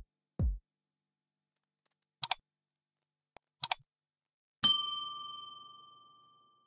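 Subscribe-button animation sound effects: a short low swoop, two quick double mouse clicks, then a single notification-bell ding that rings out and fades over about a second and a half.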